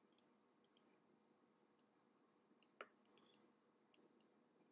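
Near silence, broken by about seven faint, sharp clicks scattered irregularly.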